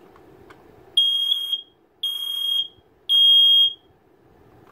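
First Alert SA304 smoke alarm sounding on test: three high-pitched beeps about a second apart, the third the loudest.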